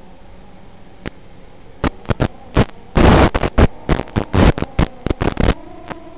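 Analog FPV video-link audio recorded in the goggles: a steady hum under static, broken by a run of loud crackling bursts in the middle as the radio signal breaks up.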